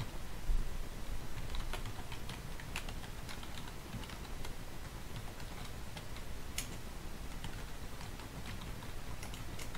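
Computer keyboard typing: irregular key clicks as a line of text is typed in.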